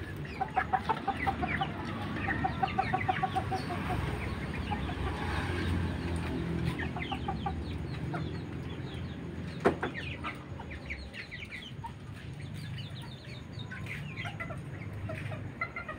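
Serama bantam chickens clucking in rapid runs of short notes, with higher chirping mixed in, over a low background rumble. There is one sharp click about ten seconds in.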